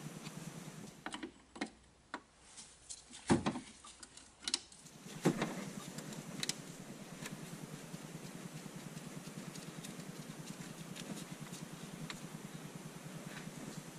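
An engine running steadily with a fast, even pulse. A few sharp knocks and clicks break in during the first few seconds, while the running sound dips, and it returns loudly about five seconds in.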